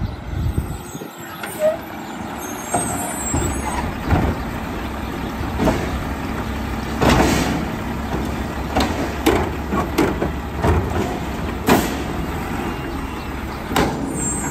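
Mack split-body automated side-loading garbage truck pulling up to the curb: its diesel engine runs with a steady low rumble that grows louder as it arrives, broken by several short, sharp air-brake hisses.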